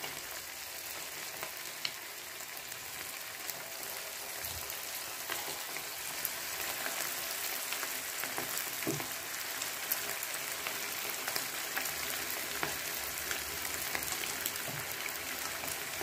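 Battered cauliflower florets deep-frying in hot oil in a pan: a steady sizzle with fine crackles, growing a little louder as more pieces are added.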